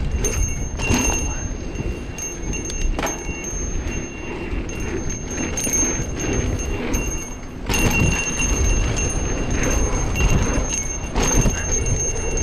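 Mountain bike coasting down a dirt trail: tyres rumbling over dirt and dry leaves, wind on the camera, and the rear hub's freewheel buzzing, with a few knocks from bumps in the trail.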